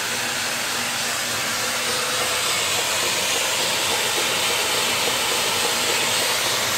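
Vacuum cleaner running steadily with an even rushing noise, its suction driving a homemade wooden air engine of PVC pipe and wood at medium speed.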